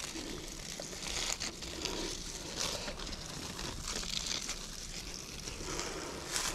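Intermittent crinkling rustle of dry leaf litter, with small handling clicks as a gloved hand works a garden tap on a wooden post.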